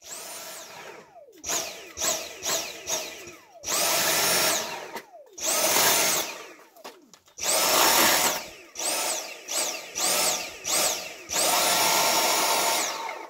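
Dyson V7 cordless stick vacuum, motorized floor head attached, switched on and off on its trigger about a dozen times: each time the motor whine climbs to a high pitch and then falls away as it winds down. Some bursts are quick blips, several are held for a second or more.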